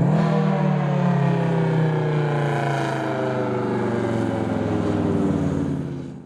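Whelen 2810 electronic outdoor warning siren sounding its whoop tone: a quick rise in pitch at the start, then a long, loud note that slowly falls in pitch and fades out just before the end.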